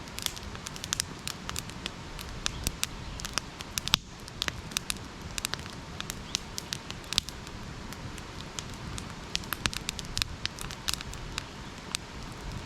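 Wood campfire crackling, with sharp irregular pops several times a second over a steady low rumble.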